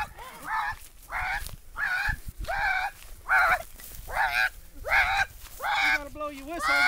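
A rapid run of high, goose-like honking whoops from people's voices, about two a second, made as a racket to flush the 'night owl' out of the tree.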